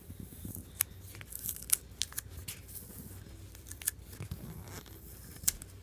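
An adhesive sticker being peeled off the back of a Zippo lighter: scattered small clicks and crackles of tearing adhesive and handling.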